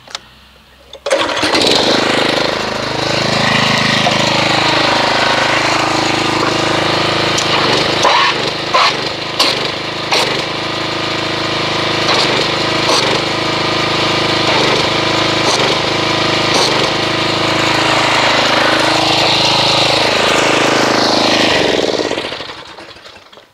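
Pressure washer running, its wand jetting water into a bucket of car-wash soap to whip it into foam. It starts abruptly about a second in, runs loud and steady, and dies away near the end.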